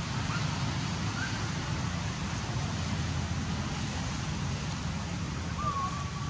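Steady wind noise buffeting the microphone, a low rumble under an even hiss, with a few faint short high whistles and one longer one near the end.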